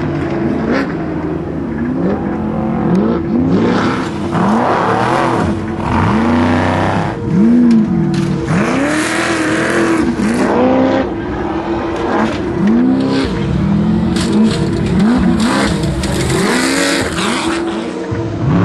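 Off-road race vehicle's engine revving up and dropping back over and over, about once a second, as the throttle is worked, with bursts of rushing noise over it.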